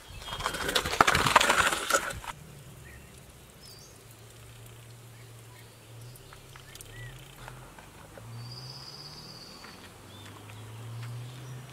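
A metal tray scraping and crunching over the ash-strewn floor of a clay wood-fired oven, rough and crackly for about two seconds near the start. After it comes a low insect buzz, with occasional bird chirps.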